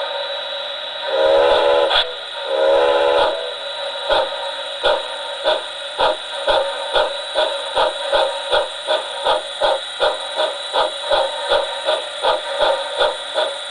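Recorded steam locomotive sound played through a small model-railway speaker mounted backwards in an enclosure. It gives two whistle blasts over a steady hiss, then steady chuffing at close to three beats a second that quickens slightly.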